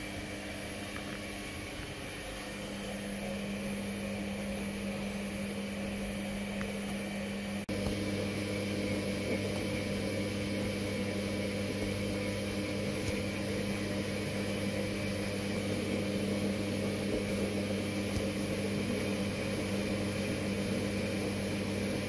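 Samsung WF1702 front-loading washing machine running with its drum turning: a steady mechanical hum that cuts off for an instant and comes back a little louder about eight seconds in.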